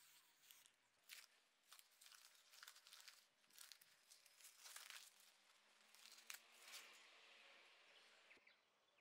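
Plastic masking and tape crinkling and tearing as they are peeled off a wheelbarrow tyre after its rim has been spray-painted: an irregular run of crackles and short rips that stops near the end.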